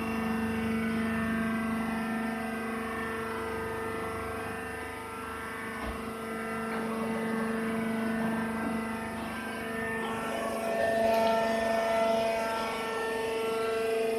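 Rice husk baler press running: a steady machine hum with a few held tones, which shift slightly about ten seconds in.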